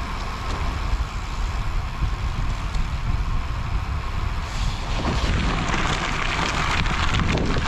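Wind rushing and buffeting over the microphone of a bike-mounted camera while riding a bicycle, a steady low rumble with hiss. It grows brighter and hissier about halfway through.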